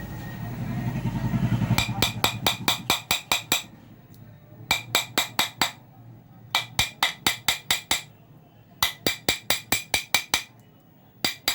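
A hammer tapping a steel file used as a punch against a ceiling fan's metal bearing housing: quick runs of sharp metal taps, about five a second, in several bursts with short pauses, starting about two seconds in after a low steady hum. It is punch-marking the worn bearing seat so that the bearing will sit tight and stop the fan's noise.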